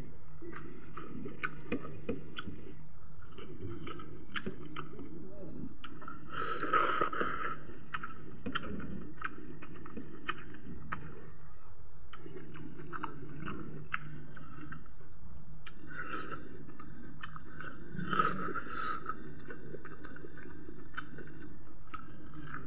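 A man chewing and smacking his lips as he eats a chicken leg with rice and greens by hand, making many small wet clicks, over a low steady hum. Twice, about seven seconds in and again about eighteen seconds in, there is a louder hiss-like sound.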